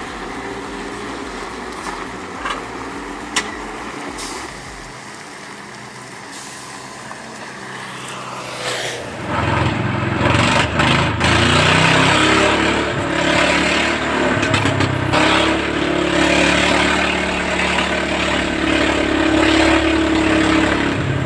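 Heavy vehicle engine running. It gets much louder and works hard from about nine seconds in, its pitch rising and falling under load, with a few sharp knocks in the first few seconds.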